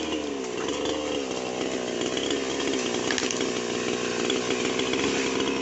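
Two-stroke New West chainsaw running at high revs through the felling cut of a sonokeling (Indian rosewood) trunk, its pitch sagging under load about half a second in, then holding steady and high.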